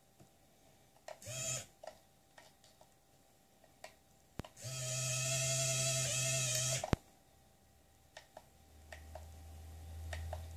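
Small electric motor of a model container crane running with a steady whine for about two and a half seconds, starting and stopping abruptly. A lower hum builds near the end.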